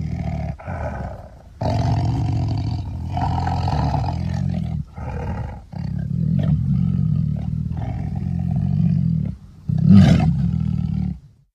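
Dinosaur roar sound effects: a series of deep, drawn-out roars with short pauses between them, the loudest about ten seconds in, cutting off abruptly near the end.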